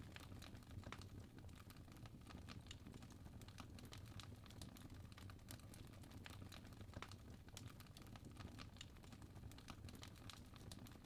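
Wood fire crackling faintly, with irregular small snaps and pops over a low steady rumble of the flames.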